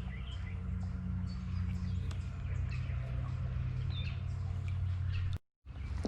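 Birds chirping over a steady low rumble; the sound cuts out for a moment near the end.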